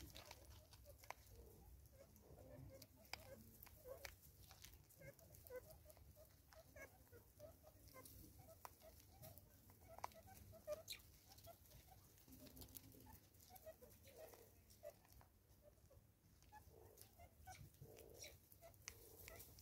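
Faint clucking calls: a loose run of many short, quick notes, with a few light clicks scattered among them.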